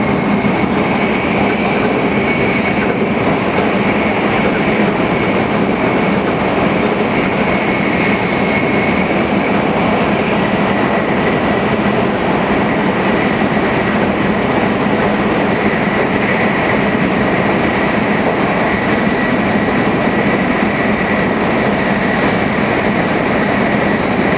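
Tokaido Shinkansen Nozomi bullet train running at high speed: a loud, unbroken rush and rumble with a faint steady high tone through it.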